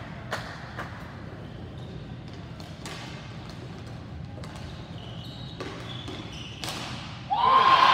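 A ball hockey stick tapping the plastic ball on a sport-court floor: a few sharp, scattered knocks over the low hum of the rink. About seven seconds in, loud music comes in.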